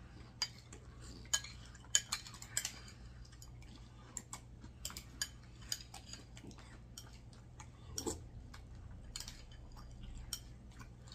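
Spoons clinking and tapping against cereal bowls during eating, in light, irregular clicks scattered throughout.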